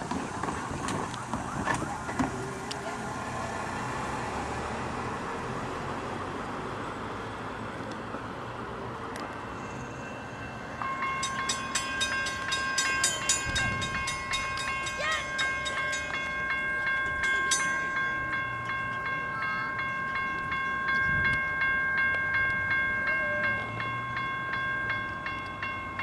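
CSX freight train passing. Its rumble runs for the first ten seconds or so. About eleven seconds in, the locomotive's horn comes in as a chord of several steady tones and is held to the end.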